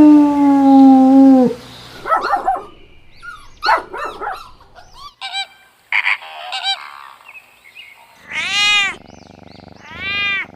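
A quick string of different animal calls, one after another: a long call that falls in pitch, several short chirping calls, then two calls that rise and fall in pitch.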